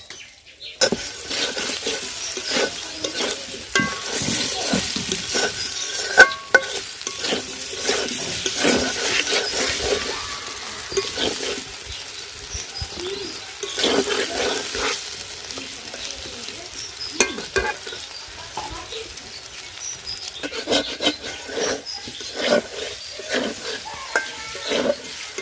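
Potato pieces sizzling as they fry in hot oil, with a spatula stirring and scraping against the pan. The sizzle starts suddenly a little under a second in.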